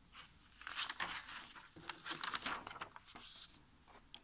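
Paper rustling and crinkling as the pages of a Gunpla model kit's instruction booklet are turned and smoothed flat by hand, in three short bursts.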